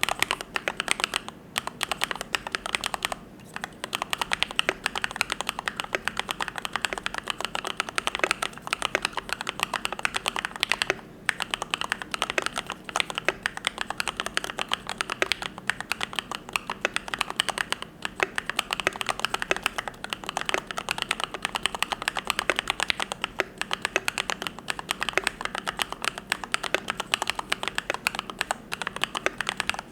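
Continuous fast typing on a YMD75 V3 custom mechanical keyboard with lubed Gateron Yellow linear switches: a dense stream of keystroke clacks, pausing briefly a few times.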